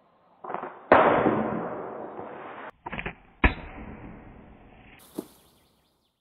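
Shots from a homemade umbrella-handle slingshot and their hits on can targets, in short clips cut together. A loud sharp crack about a second in is followed by a long fading rush. Further cracks come around three seconds in, and a quieter one comes near five seconds.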